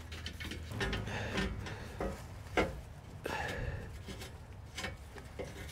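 Underbody skid plate of a Ram 1500 being lifted into place by hand: scraping and rubbing against the frame, with several light knocks about a second apart.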